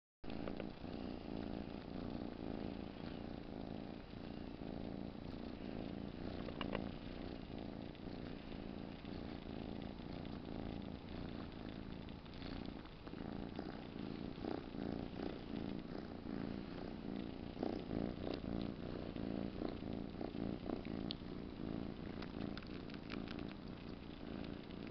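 Calico kitten purring steadily close up, with faint clicks in the second half as it sucks on its own tail.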